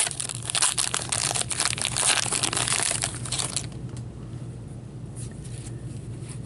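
Foil trading-card pack wrapper being torn open and crinkled by hand, a dense crackling that stops about three and a half seconds in. After that come only a few faint rustles of cards being handled.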